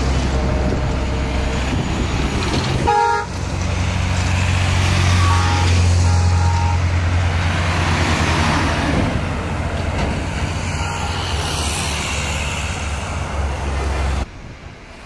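Heavy diesel trucks driving past close by with a loud, steady engine rumble. Short truck-horn toots sound about three seconds in and again around six seconds in. The rumble drops off sharply near the end.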